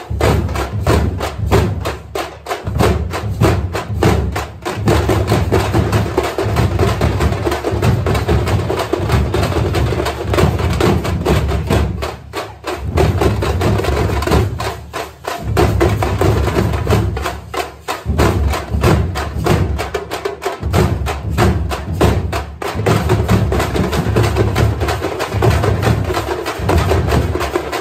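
A troupe of drummers beating shallow stick-struck frame drums together with a large bass drum, a fast, loud, dense rhythm of sharp strokes over deep thumps. The playing comes in phrases with short breaks, about half a dozen times.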